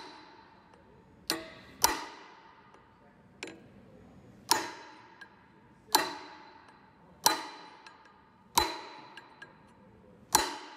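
Metal-on-metal hammer blows on a drift held against a rusted tapered steel bushing seated in an aluminum pulley, driving the bushing out of its taper. About seven loud ringing strikes come roughly one every second and a half, with a couple of lighter taps between them.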